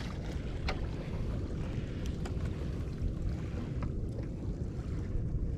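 Wind buffeting the microphone, a steady low rumble, with a few light clicks scattered through it.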